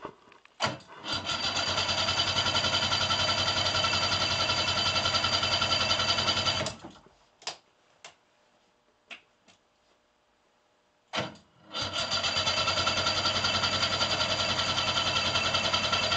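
1989 Arctic Cat Jag 340 snowmobile's two-stroke engine being cranked over for about six seconds without catching, then, after a few seconds' pause with a couple of clicks, cranked again. It won't fire because the fuel lines and carburettor bowl are still dry after the off season.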